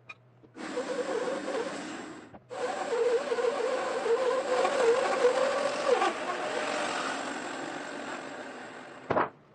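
A 20-inch, 3/4-horsepower bandsaw running and cutting through an ash log, in short spliced clips with abrupt gaps of silence between them. About six seconds in its pitch drops and the sound fades away, with a quick downward sweep just before the end.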